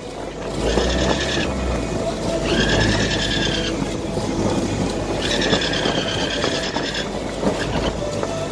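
Wind rushing over the microphone on a sailboat's deck during reefing of the mainsail, with three high squeals of a second or two each.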